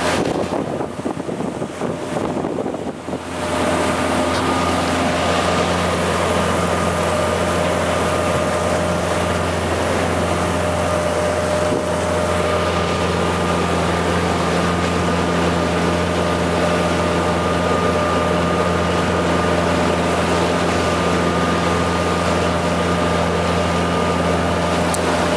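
Motorboat engine running steadily under way, with water rushing past the hull and wind on the microphone. The first few seconds hold only gusty wind and water noise; about three seconds in the engine comes in louder and holds a steady drone.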